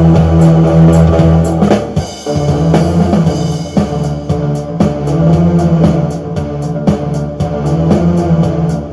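Loop synthesizer music: sustained low bass notes under shifting pitched tones, with a steady ticking beat. The sound thins out briefly about two seconds in, then picks up again.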